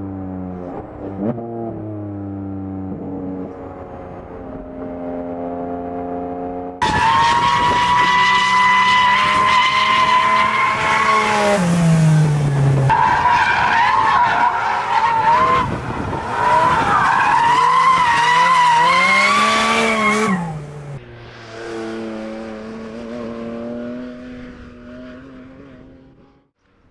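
Porsche 718 Cayman GT4 RS's naturally aspirated flat-six engine running on track, its pitch rising and falling with the revs. About seven seconds in, loud tyre squeal starts suddenly and goes on for about fourteen seconds through hard cornering while the engine keeps rising and falling. After that the engine is heard alone again and fades near the end.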